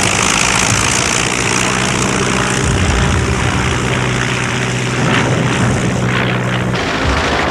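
Propeller aeroplane engine droning steadily, a piston engine's low hum over a rushing wash of noise. The steady hum drops away about a second before the end.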